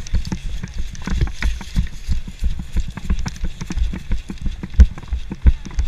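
Hurried footsteps on the ground with irregular thuds and rattling gear, one louder thump a little before the end.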